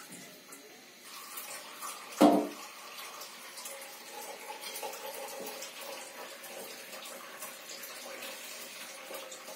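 Water running steadily, with a short louder sound about two seconds in.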